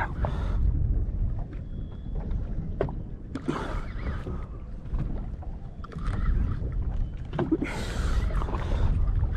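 Wind rumbling on the microphone aboard a small boat offshore, with water washing against the hull; two louder rushes of water about three and a half and eight seconds in, and a few sharp knocks.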